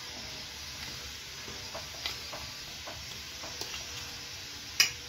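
A dry, crumbly mixture of roasted wheat flour and sugar being mixed on a steel plate with a spoon and by hand: soft scraping and rustling with scattered light clicks of the spoon on the plate, and one sharper click near the end.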